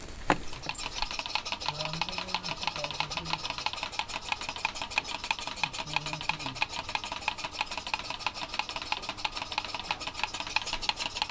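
A machine clicking fast and evenly, a steady run of sharp ticks several times a second, with a few faint low tones about two and six seconds in.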